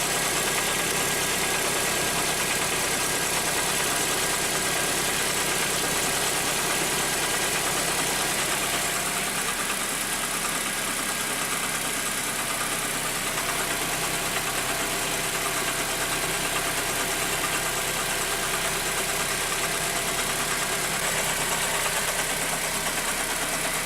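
Car petrol engine idling steadily with a foreign knock, which the owner traces to a torn air-conditioning compressor belt.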